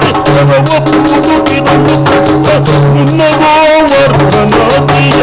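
Yakshagana bhagavata singing a verse in a full, ornamented voice over quick maddale and chande drum strokes, with a steady low drone underneath.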